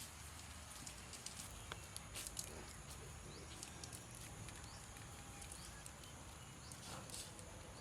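Faint outdoor background with scattered light clicks and taps.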